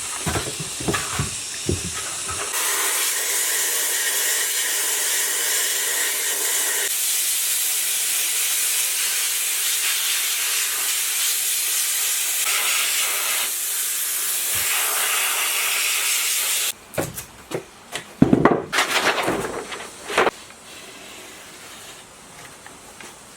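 A few light knocks, then a loud steady hiss lasting about fourteen seconds that cuts off suddenly, followed by a short run of clattering knocks.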